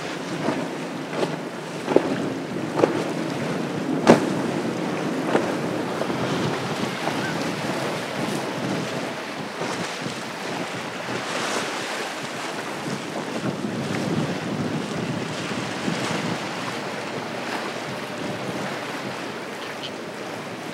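Center console boats running at speed through choppy inlet water: a hull slaps down on the waves several times in the first few seconds, then a steady wash of spray and waves, with wind on the microphone.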